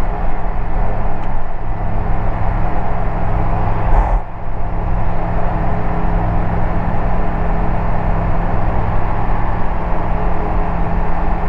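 Microlight aircraft's engine and propeller droning steadily in flight. The drone dips briefly a little after four seconds in.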